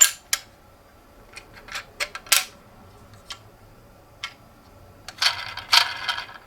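Sharp plastic clicks and knocks from a toy ambulance minicar being handled, then a rattling burst lasting about a second near the end.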